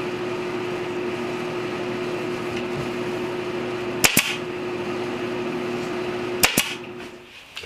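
A steady machine hum, like an air compressor running, broken twice by a sharp double snap of a pneumatic fastener gun firing, about four seconds in and again about two and a half seconds later. The hum dies away near the end.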